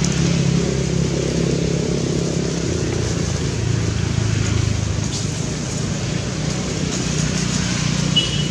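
An engine running steadily with a low hum, its pitch dropping a little about three seconds in. A brief high tone sounds near the end.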